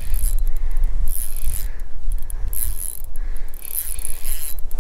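Spinning reel being cranked to reel in a hooked fish, its gears whirring and clicking unevenly, over a steady low rumble.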